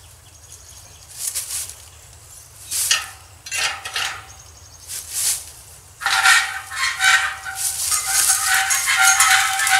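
Small homemade metal trailer frame knocking a few times as it is handled, then rattling steadily with a ringing metallic tone as it is pulled along on its wheels from about six seconds in.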